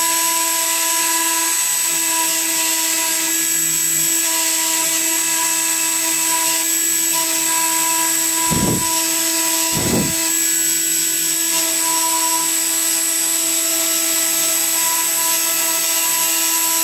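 A CNC router's Wolfgang Engineering spindle whines steadily at high speed as a fine engraving bit routes traces in a copper-clad circuit board. Two short low thumps come about a second apart midway through.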